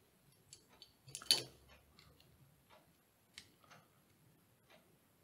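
Small hard-plastic clicks and taps of LEGO minifigure pieces being handled and pressed together, with the loudest cluster of clicks about a second in and a few lighter ticks after.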